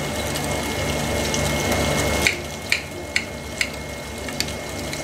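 Knife cutting through a crisp panko-crumbed Scotch egg on a plate, with a run of sharp crackles about half a second apart in the second half.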